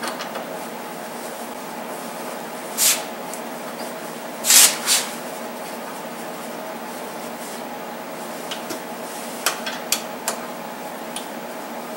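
Hands threading a bolt into a headlight housing and bracket: a few short rubbing, scraping sounds, the loudest about four and a half seconds in, and light metal and plastic clicks near the end, over a steady background hum.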